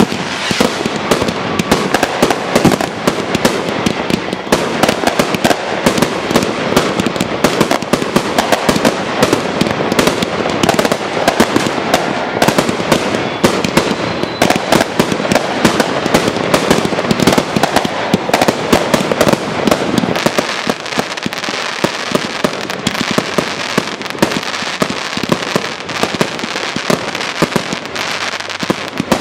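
New Year's Eve fireworks and firecrackers going off without pause: a dense, continuous crackle of many rapid bangs and pops.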